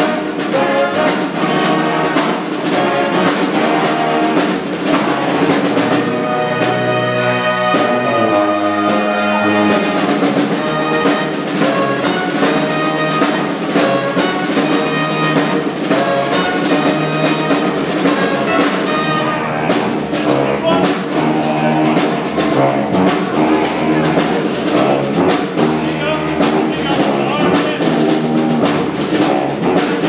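Brass band playing live: trumpets, trombones, saxophones and tuba over a snare drum. About six seconds in, the horns hold long notes for a few seconds before the beat picks up again.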